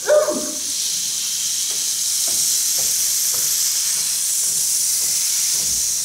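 Steady, even rain-like hiss, a sound effect for rain falling, with a few faint ticks in it; a short voice calls out right at the start.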